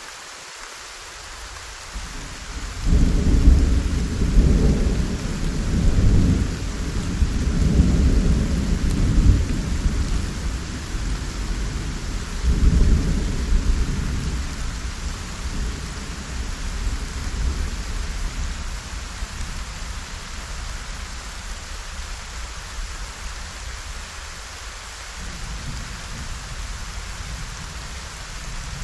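Steady heavy rain with a long peal of rolling thunder: the rumble breaks in about three seconds in, swells in several waves, surges again near the middle, then slowly dies away under the rain.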